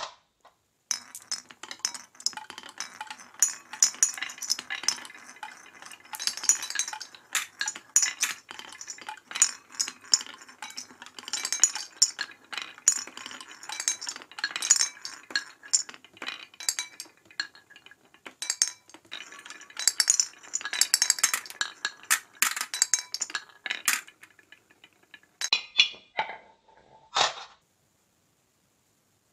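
Glass marbles rolling down a wooden marble run: a dense, rapid clatter of clicks and clinks as they bounce over the wavy wooden track and spin through clay funnel bowls, thinning to a few separate clinks near the end.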